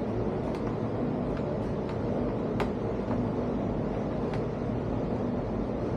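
A steady low background drone, with about five faint sharp clicks from a hex key working a bolt out of a camp fridge lid's metal hinge.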